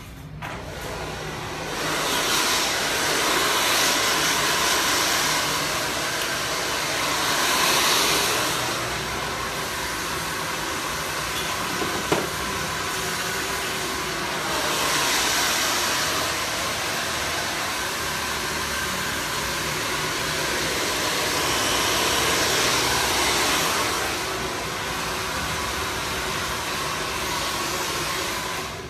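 Handheld hair dryer blowing hair, a steady rushing noise that swells louder and fades several times as the dryer is moved around the head. It starts just after the beginning and cuts off at the end.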